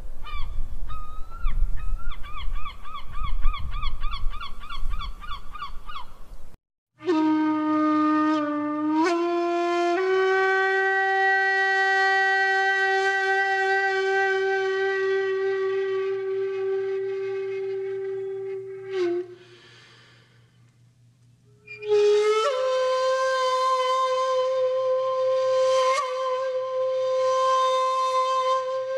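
For the first six seconds, a bird gives rapid warbling calls over low rumbling wind noise. Then a wind instrument, flute-like, plays long held notes that slide up into each new pitch, breaks off for about two seconds, and comes back with a higher held note.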